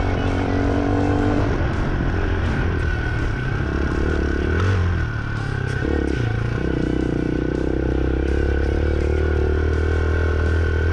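Hawk 250 dual-sport motorcycle's single-cylinder engine running while riding across rough ground. The engine note drops briefly about five seconds in, as if the throttle is eased or a gear changed, then holds steady again.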